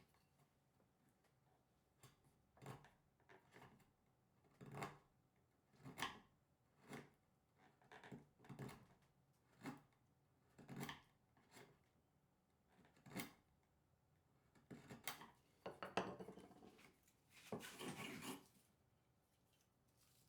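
A hand tool working wood in a string of short, separate strokes, about one a second and unevenly spaced. Near the end it turns to longer, denser scraping.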